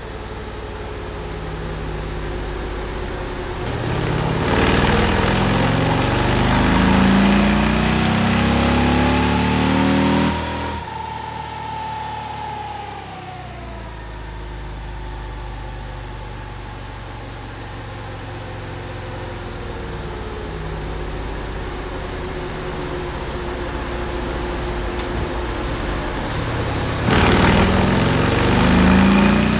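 Stock 2024 Harley-Davidson CVO Road Glide ST's 121-cubic-inch V-twin on a chassis dyno. It runs steadily, then about four seconds in pulls hard at full throttle with the pitch climbing. About ten seconds in the throttle shuts off sharply and a whine falls away as it coasts down, and near the end a second full-throttle pull begins.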